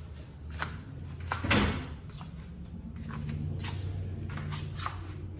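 Steel tool box drawers and doors being handled: scattered clicks and knocks, one louder knock about a second and a half in, over a low steady hum.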